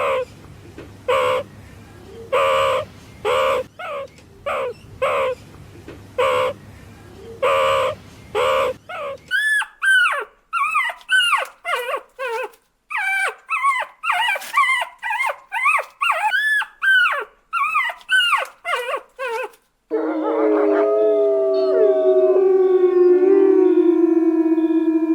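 Puppies crying in three stretches. First come short yelps about once a second over a low hum. After about nine seconds there is a faster run of high, arching whines. In the last five seconds several long howls overlap and glide in pitch.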